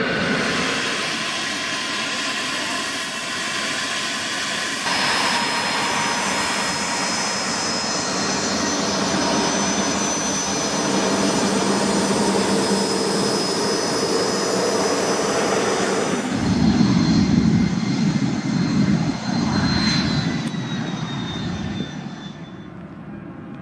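Bombardier CRJ-200's rear-mounted GE CF34 turbofan engines running, a steady jet noise with a high whine. About two-thirds of the way in it gets louder with a heavier rumble, and near the end the whine drops slightly in pitch as the level falls.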